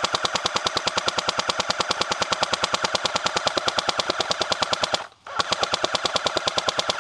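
Airsoft M60 electric gun firing full-auto at about twelve shots a second, one long burst that breaks off briefly about five seconds in and then resumes.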